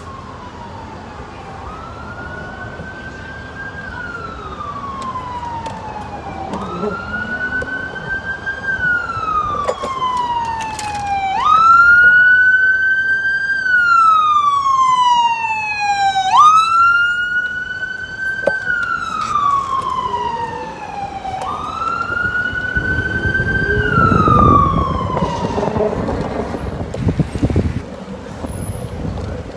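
Ambulance siren wailing, each cycle a quick rise followed by a slow fall in pitch, about every five seconds. It grows louder as the ambulance comes close and is loudest about halfway through. A low rumble joins in near the end.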